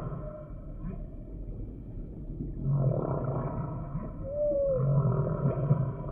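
Humpback whale song: overlapping low calls, quieter at first, then a new phrase under three seconds in with a short call that rises and falls in pitch a little after four seconds.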